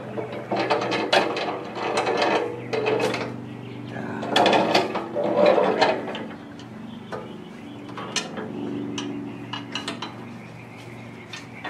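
Steel deck of a Great Dane Super Surfer mower being grabbed and tipped up on its edge, its rusty metal clanking and rattling in bouts over the first half, loudest about four to six seconds in. It goes quieter near the end as the deck is carried.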